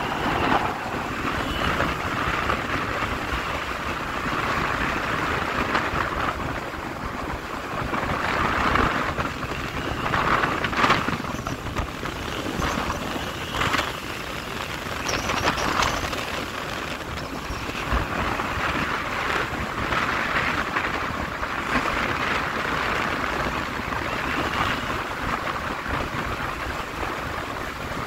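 Wind buffeting the microphone of a vehicle moving at road speed, over a low rumble of road and engine noise, swelling and easing every few seconds.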